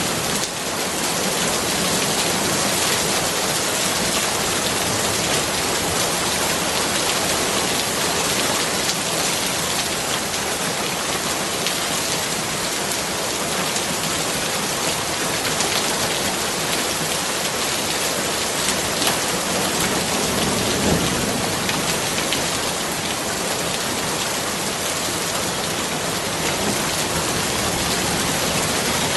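Steady rain falling, a dense even hiss of drops. A faint low rumble comes about twenty seconds in.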